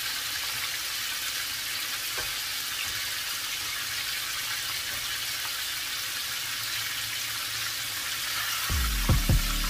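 Battered turkey thighs deep-frying in hot oil in a cast-iron skillet: a steady sizzle. Near the end, music with a heavy beat comes in and is louder than the frying.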